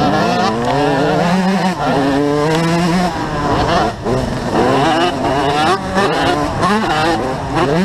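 Motocross bike engine heard from on board, revving up, holding and easing off repeatedly as the rider accelerates and shifts gear. Other bikes' engines are close ahead.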